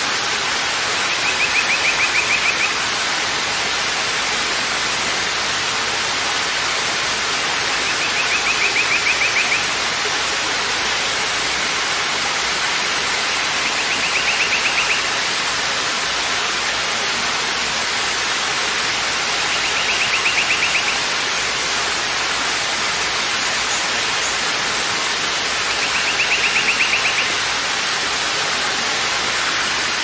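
Waterfall rushing steadily over rocks. A high, rapidly pulsing buzzy trill of about a second and a half cuts in five times, roughly every six seconds.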